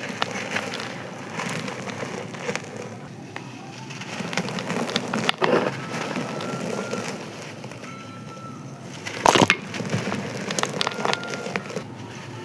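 Dry sand-cement chunks being crumbled and crushed, a continuous crunchy crackle of small grains and bits breaking, with two sharper snaps, about five and nine seconds in.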